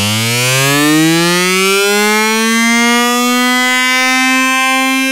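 Electronic music: a buzzy synthesizer note sliding up in pitch over the first two seconds or so, then holding one steady note.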